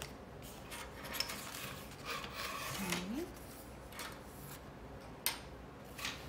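Pencil scratching on paper in short strokes, loudest around the middle. A brief rising hum from a voice comes about three seconds in, and a sharp click a little after five seconds.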